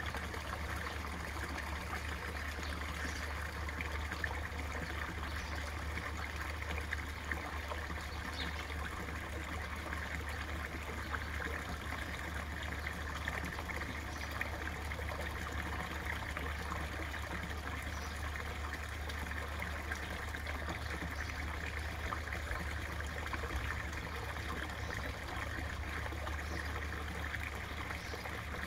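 Small garden-pond waterfall trickling steadily into the pond, with a steady low rumble underneath.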